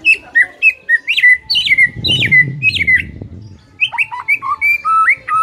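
White-rumped shama (murai batu) singing loudly: a fast run of clear whistled notes sliding up and down, then a short break a little past the middle, then a second run.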